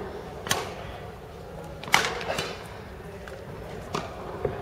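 Badminton rally: sharp racket strikes on a shuttlecock, about four, the loudest about two seconds in, each ringing briefly in the large hall.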